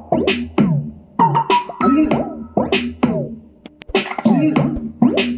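Music in short, choppy rhythmic strokes played through a homemade two-way speaker box, driven by a ZK-502M Class D Bluetooth amplifier board streaming from a phone.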